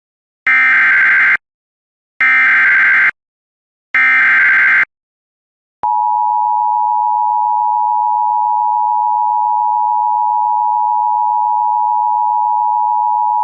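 Emergency Alert System signals: three short screeching SAME header data bursts, evenly spaced, encoding the severe thunderstorm warning for receivers. From about six seconds in comes the steady two-tone EAS attention signal that announces the alert.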